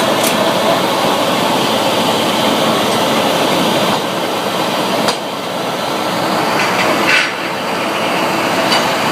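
Sawmill machinery running loudly, a steady mechanical noise broken by a few sharp clanks.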